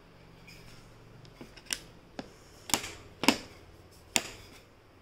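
A handful of sharp plastic clicks and knocks, about five in all, as a Philips BHS393/40 hair straightener is handled.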